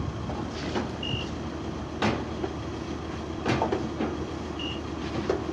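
Steady hum of self-service car wash machinery, with two short high beeps from the coin-operated wash controls, one about a second in and one near the end, and a couple of sharp knocks between them.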